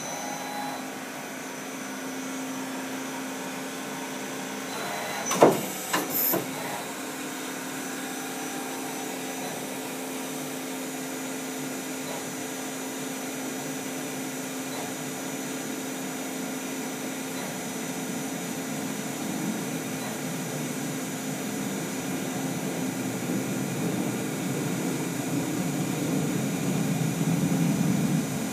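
Daewoo Lynx 200 CNC lathe running a program: a steady machine hum with a few fixed whining tones from the turning spindle and drives. Two sharp clunks come about five and six seconds in. Over the second half a rougher noise builds and grows louder as the tool feeds along the Z axis.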